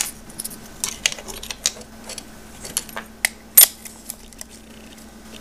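Scattered small clicks and light knocks from a scale model Cat 330D excavator's tracks and body parts being handled and fitted together by hand. The loudest click comes about three and a half seconds in.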